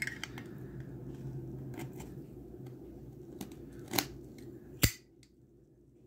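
Small metallic clicks and scrapes as the brass insert is fitted back into a solid brass armor Zippo lighter case, ending about five seconds in with one sharp click as the lid snaps shut.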